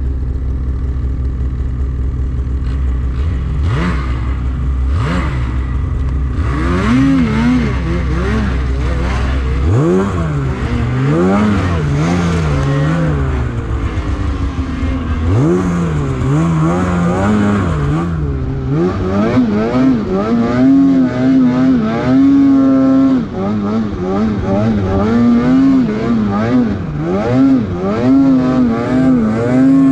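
Snowmobile engine running at a low steady drone for about ten seconds, then revved up and down over and over, its pitch rising and falling roughly once a second as the throttle is worked.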